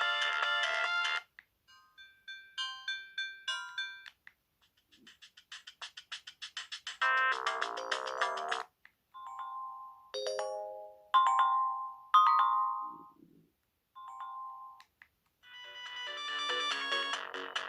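A BenQ Siemens AL21 mobile phone playing a run of ringtone melodies and short alert tones through its speaker, one after another. Each stops after a second or a few and the next begins.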